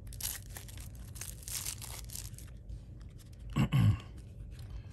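Plastic wrapping being torn and crinkled off a deck of game cards, with tearing lasting about two seconds. A short vocal sound follows near the end.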